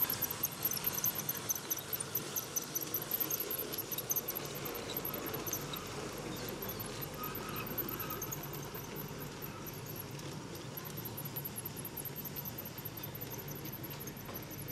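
G-scale model train running along garden track: a steady low motor hum and wheel rumble, with a constant high-pitched chirping or squeaking over it.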